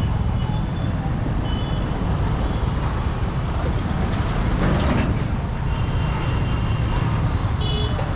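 Busy road traffic: a steady low rumble of passing vehicles, with short high beeps here and there and one vehicle going by close about five seconds in.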